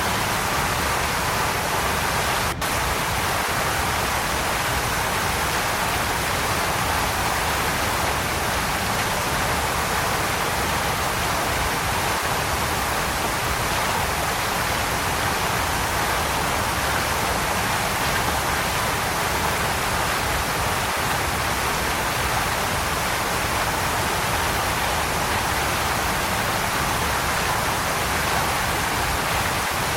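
Waterfall rushing in a steady, even roar of falling water, with one very brief dropout about two and a half seconds in.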